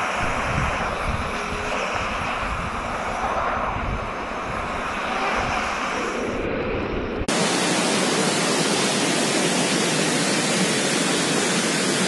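Wind buffeting a handheld phone microphone, an even noise with irregular low rumbling gusts. About seven seconds in, it cuts abruptly to a steady, louder, even hiss.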